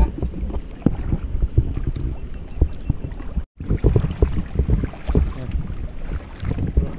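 Footsteps splashing and sloshing through shallow seawater over a rocky reef flat, a rapid, irregular run of low thumps and splashes, with wind buffeting the microphone.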